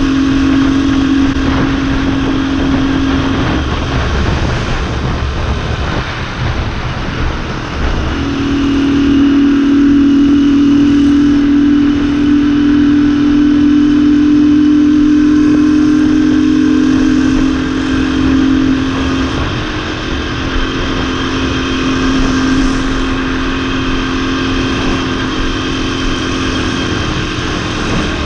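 Motorbike engine running steadily at cruising speed, its hum holding one pitch for long stretches. It steps up in strength about a third of the way in and eases off after the middle.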